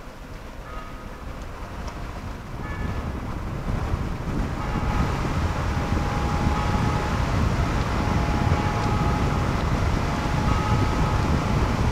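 Road and wind noise inside a moving vehicle, a steady rumble that builds over the first few seconds as it picks up speed and then holds, with faint high tones coming and going.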